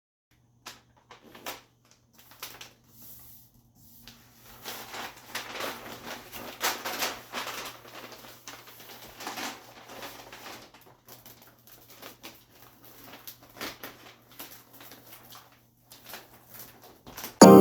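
Irregular rustling, crinkling and light tapping of something being handled, over a steady low hum. Music starts right at the end.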